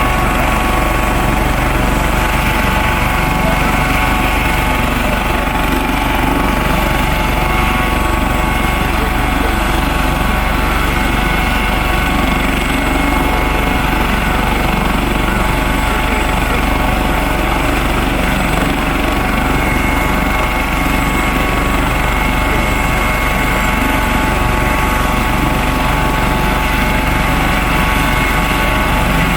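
A steady engine running at constant speed, a rough rumble under a whine of several steady tones that does not change.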